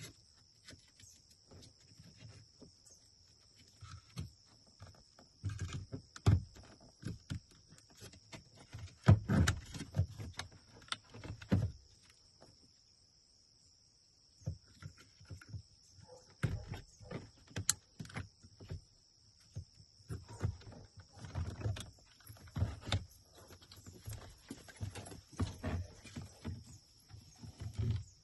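Hands working on the plastic door switch assembly: irregular clicks, taps and knocks of plastic parts being handled and fitted, in uneven clusters with a short quiet pause about halfway through.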